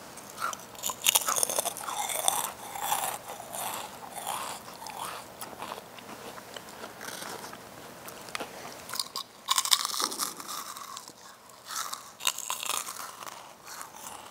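Crunchy snack chips being bitten and chewed, in irregular crisp crunches, loudest about a second in and again around nine to ten seconds.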